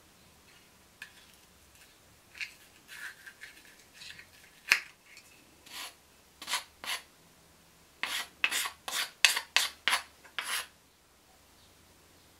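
Hand scraping on a freshly hole-sawn carbon fiber disc: short rasping strokes, scattered at first, then a quick run of about a dozen strokes that stops suddenly near the end.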